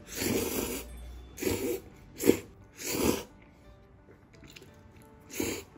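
A person slurping oil soba (abura soba) noodles with chopsticks, about five noisy slurps in quick succession with short pauses between, the last a couple of seconds after the others.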